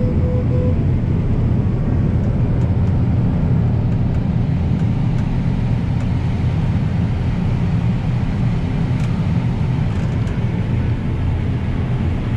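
Combine harvester heard from inside its cab while cutting corn: a steady, loud low drone of engine and machinery, with faint scattered ticks.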